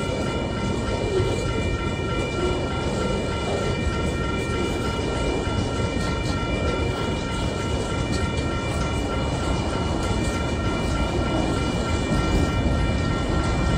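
A freight train's wagons roll past close by, container wagons and then hopper wagons: a steady rumble of wheels on rail. Several steady high-pitched tones ring above the rumble.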